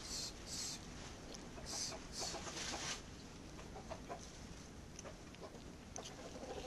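A cat chewing and crunching on a chicken bone: a few short, sharp crunches in the first three seconds, then quieter scattered chewing clicks.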